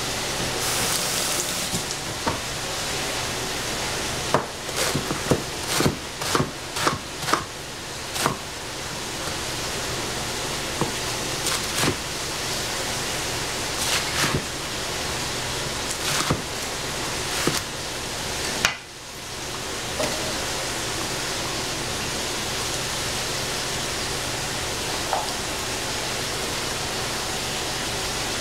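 Vegetables sizzling steadily in a frying pan while a utensil clicks and knocks against the pan. The knocks come in a quick run from about four to eight seconds in and more sparsely after. A sharp knock about two-thirds of the way through is followed by a brief dip in the sizzle.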